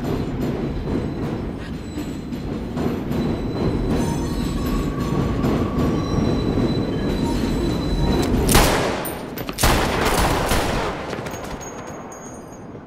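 A train rumbling and clattering across an elevated steel viaduct overhead. There are two loud bursts of noise about eight and a half and ten seconds in, and the rumble fades near the end.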